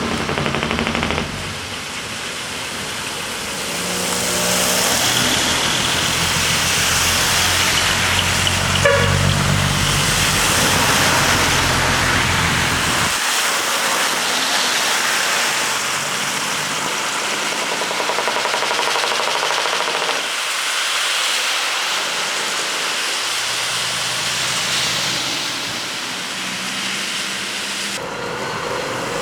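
Large decorated trucks driving off one after another, their diesel engines running, with air horns (ラッパ) sounding. A deep engine rumble fades about halfway through and comes back near the end.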